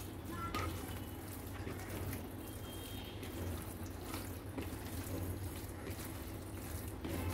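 A hand squishing and kneading raw boneless chicken pieces in an oil-and-spice marinade in a bowl: irregular wet squelching.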